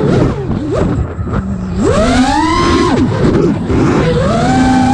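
Brushless motors and 5-inch three-blade propellers of an Eachine Wizard X220 FPV racing quadcopter, recorded on board: the whine drops low and rough as the throttle is cut, climbs sharply about two seconds in, holds, falls away, then climbs again near the end.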